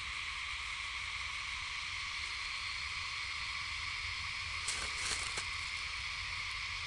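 Steady, shrill chorus of insects with a low rumble beneath it. A few short crackles come about five seconds in.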